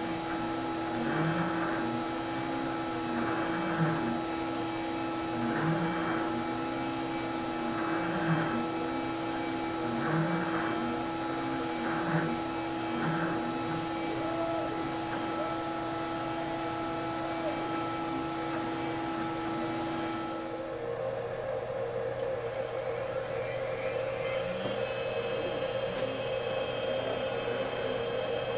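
Water-cooled CNC router spindle running with a steady whine while the stepper motors drive the axes, their pitch sweeping up and down about every two seconds as the machine runs a test program. About two-thirds of the way through, the whine changes to a different steady pitch.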